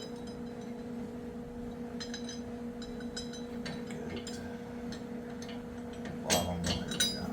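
Small steel lift spacers and brackets clinking and tapping as they are handled and set into the front suspension, with a few louder metal clanks near the end, over a steady electrical hum.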